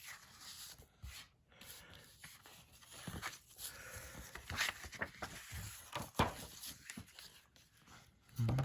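Paper rustling and handling as a folded DVD pamphlet is taken out and opened, with scattered soft crinkles and light clicks of the plastic case. A short low thump comes near the end.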